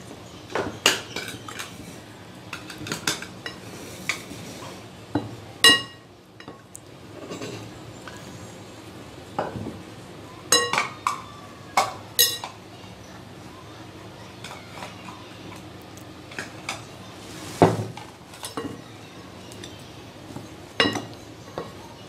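Metal spoon stirring a dry gram-flour and spice mix in a glass bowl: soft scraping with irregular sharp clinks of metal on glass that ring briefly.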